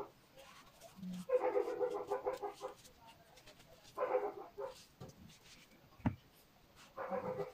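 An animal's drawn-out, wavering cries: a long one of about a second and a half, then two shorter ones, with a single sharp knock between the last two.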